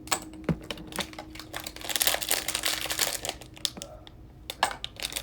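Small plastic clicks and crinkling of a plastic blind-bag wrapper as a Disney Doorables collectible figure and its stand are handled and taken out of the packaging.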